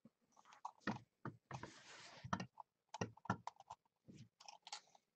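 Cardboard trading-card boxes being handled: a run of light taps and clicks, with a brief scraping rustle about one and a half seconds in.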